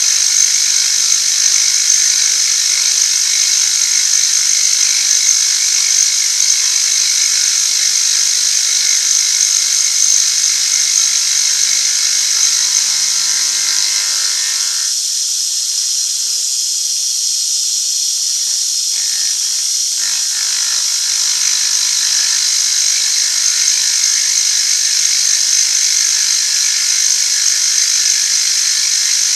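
Metal-cutting machine tool running steadily as it cuts away metal, a continuous high hiss and whine. The lower part of the sound drops away for about five seconds midway.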